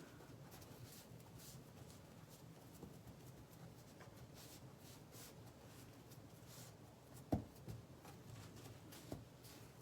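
Faint rubbing strokes of a hand pressing a paint-covered leaf flat onto the surface to print it, with a sharp knock about seven seconds in and a lighter one near the end.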